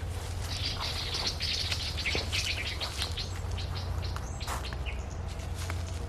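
Birds chirping in a quick run of short high calls, thinning out after a few seconds, over a steady low hum, with a few sharp clicks or rustles later on.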